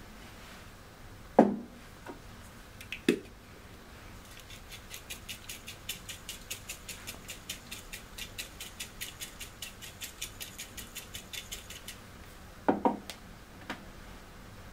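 Quick, even scraping strokes of a small hand grater, about four or five a second, as seasoning is grated over a dish. Before the strokes, two knocks as a glass bottle is set down on a counter, and near the end another knock as something is put down.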